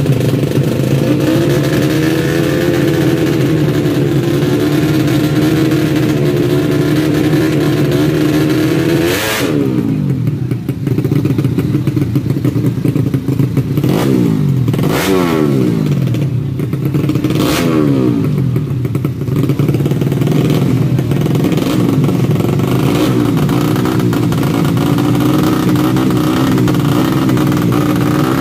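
Four-stroke underbone drag-race motorcycle engines running at high revs, with a series of sharp rev rises and falls in pitch between about 9 and 18 seconds in, then settling back to a steady note.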